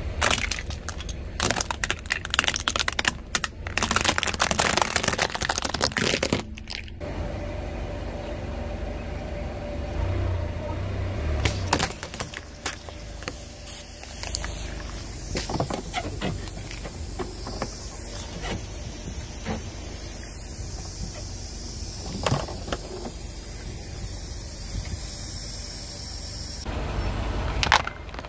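Car tyre slowly rolling over and crushing hard plastic toys and syringes on asphalt. It makes a dense run of sharp cracks and crunches for the first several seconds, then scattered snaps over a low rumble.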